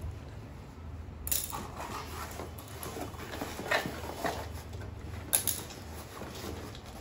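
Scattered scrapes, rustles and clicks from a cardboard shipping box being handled and cut open on a tiled floor, with a sharp knock about five seconds in.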